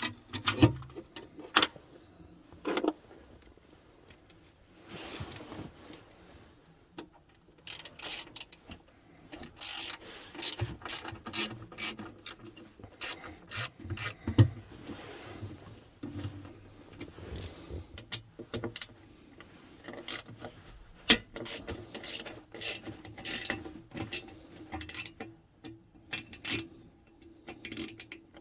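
Bolts on a battery tray cover being backed off with a hand tool: irregular runs of mechanical clicking, knocks and rubbing of metal on metal and plastic.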